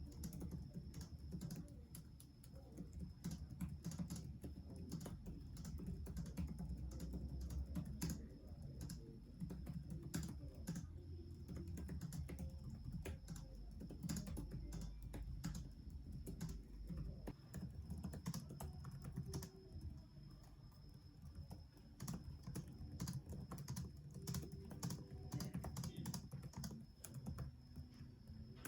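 Typing on the Acer Predator Helios 300 laptop keyboard: a quick, irregular run of key clicks over a faint steady high whine.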